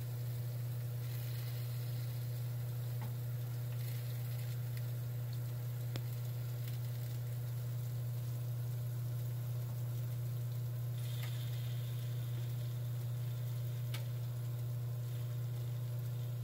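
A steady low hum from the running oven, the loudest sound, with bone-in chicken thighs faintly sizzling in their rendered fat and juices on the sheet pan and a few small pops.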